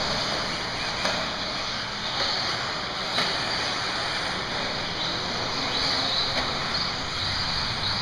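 1/10-scale 4x4 RC buggies racing on a dirt track: a steady hiss of motors and tyres with faint high whines, and two sharp knocks about a second and three seconds in.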